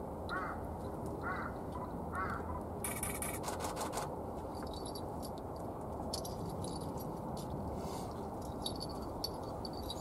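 An eastern buzzard feeding in dry reeds: a brief burst of rustling about three seconds in, then scattered faint ticks and crackles as it tears at its prey. Three short bird calls about a second apart sound near the start, over a steady outdoor hiss.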